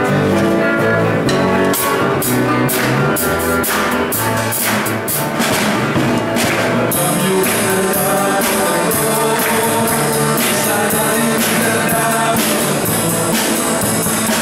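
Live worship band playing a song: a man singing into a microphone over electric guitar and a drum kit. The cymbals are struck regularly at first, then ring continuously from about halfway through.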